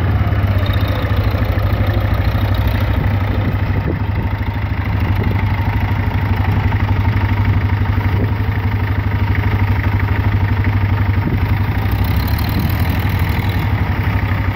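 Engine of a Case 830 tractor running steadily while it is driven, with an even throb that does not change.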